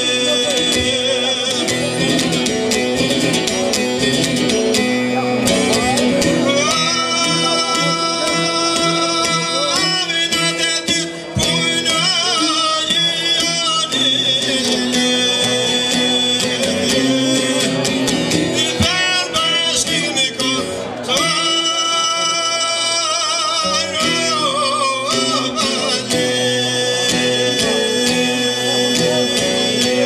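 A man sings an Albanian rhapsodic folk song in long, held phrases. He accompanies himself on a çifteli, a two-stringed long-necked lute, plucked steadily under the voice.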